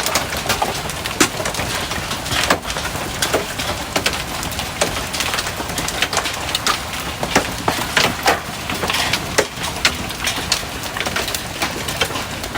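Golf-ball-sized hail pounding down: a dense, irregular patter of sharp cracks and knocks as hailstones strike, over a steady hiss.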